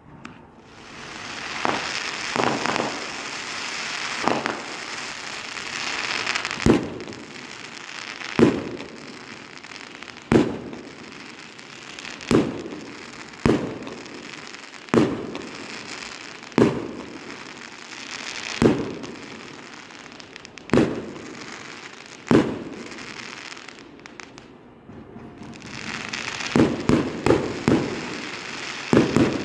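Fireworks going off: a hissing, crackling stretch for the first few seconds, then single sharp bangs about every two seconds, and a quick string of bangs near the end.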